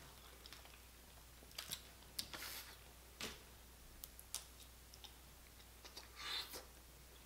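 Faint, scattered clicks and cracks of boiled crawfish shells being broken and peeled by hand, mixed with eating sounds, with a longer soft rustle or slurp about six seconds in.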